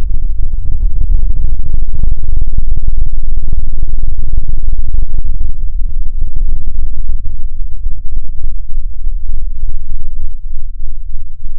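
A heavily slowed-down, distorted sound effect: a very loud, deep, crackling rumble that about halfway through breaks into a stutter of separate pulses, roughly three a second.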